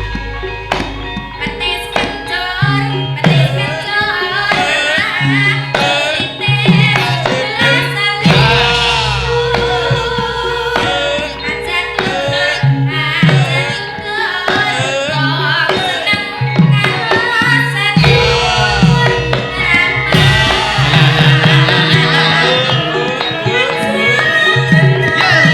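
Javanese gamelan music with kendang hand-drum strokes and a wavering singing voice over it.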